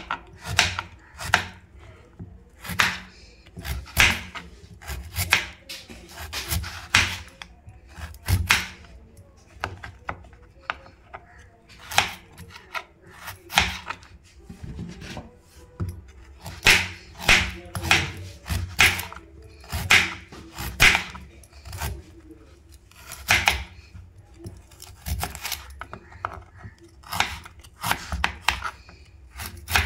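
Kitchen knife slicing peeled sweet potato into rounds on a plastic cutting board: a run of sharp, irregular cuts, often one or two a second, with short pauses between.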